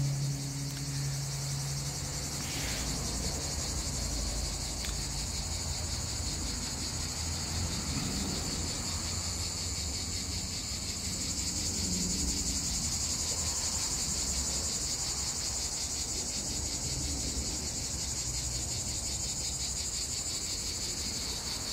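Insects chirring steadily outdoors, a dense, high-pitched, rapidly pulsing drone that does not let up, with a low rumble underneath.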